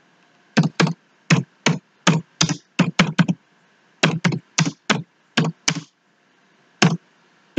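Computer keyboard keys typed slowly one at a time: irregular single clicks in short runs, with a pause of about a second midway.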